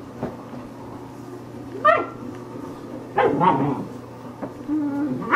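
German shepherd puppy play-barking: one sharp, rising yip about two seconds in, a quick flurry of barks a second later, and another bark at the end. A short low growl comes just before that last bark.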